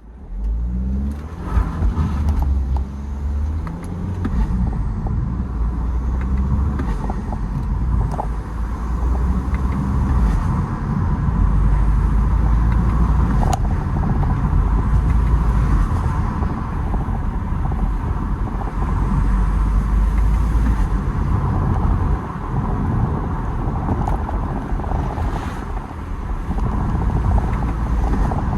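BMW 320d's N47 four-cylinder turbodiesel running and pulling through the revs, with turbo and intake noise from an open air intake and brief flutter sounds a few times as the throttle is lifted.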